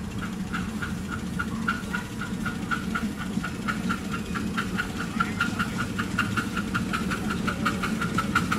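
7¼ inch gauge miniature steam locomotive hauling a passenger train, its exhaust beats quickening from about two to about five a second as it gathers speed, over a steady low hum.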